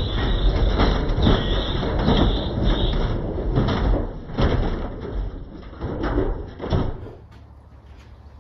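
Beko washing machine spinning its drum with a concrete weight inside: a dense mechanical racket of rattling and repeated knocks from the unbalanced drum. About seven seconds in, the noise drops away to a faint low hum.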